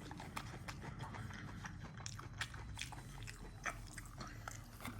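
A person chewing and biting crispy cheese and bacon tater tots: faint, irregular crunches and mouth clicks.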